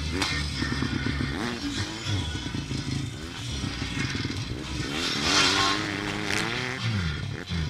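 Off-road motorcycle engine revving up and easing off as the bike is ridden hard over a dirt track, its pitch rising and falling again and again. A louder burst of rushing noise comes about five seconds in.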